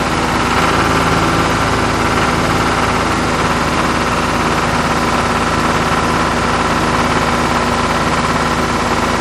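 Engine idling steadily with a fine, even knock, like a diesel tractor at idle.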